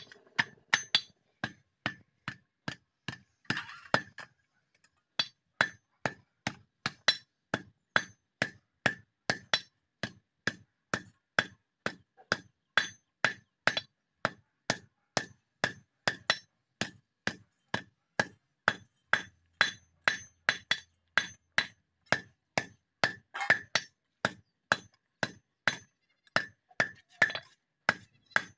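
Hand hammer striking a red-hot steel sickle blade on an iron anvil, steady blows about two a second, each with a metallic clink. The blows pause briefly about four seconds in.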